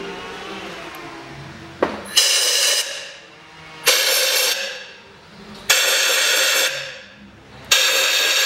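Compressed-air blow gun blasting into the spark plug wells in four short bursts of hiss, each about a second long, roughly two seconds apart. It is clearing dirt from the wells so no particles fall into the cylinders when the plugs come out.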